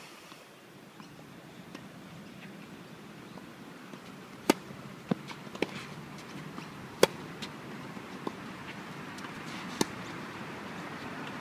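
Tennis rally: sharp pocks of racquets striking the ball, with softer ball bounces on the synthetic-grass court in between. The hits begin about four and a half seconds in, and the three loudest come from the near player's racquet.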